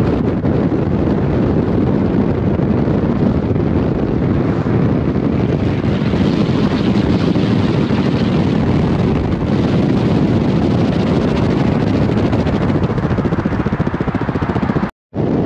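Steady rush of wind and road noise from a car driving at speed. The sound cuts out for a moment near the end.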